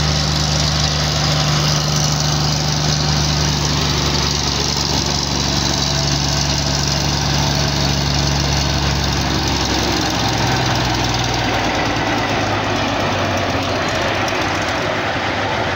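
Cummins diesel engine of a GE 80-ton center-cab switcher locomotive running steadily, working alone after the locomotive's other Cummins engine failed. About ten seconds in its note drops lower as it throttles down.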